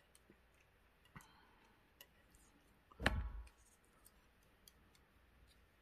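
Faint clicks and light taps of metal stamp tweezers and paper stamps being picked up and set down on a wooden desk. About three seconds in comes one louder, short thump.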